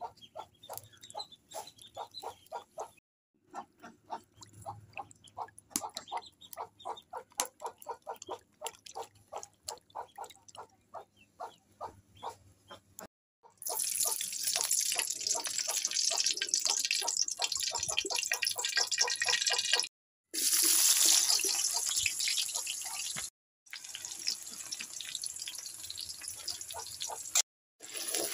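Fish heads being rinsed by hand, with water splashing and dripping in many short splashes. About halfway through, a loud steady hiss takes over as oil poured into a hot wok sizzles, then sliced onions and green chillies fry in the oil and are stirred with a wooden spatula, broken by short silent cuts.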